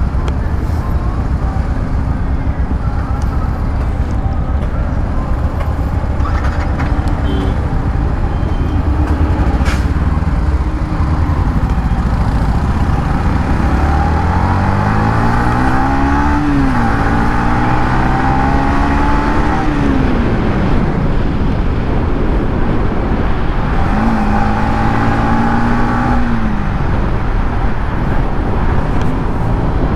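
Yamaha MT-15's 155 cc single-cylinder engine on its stock exhaust, idling while stopped in traffic, then pulling away and accelerating through the gears. The engine note rises in pitch three times and drops back at each upshift, over steady wind and road noise.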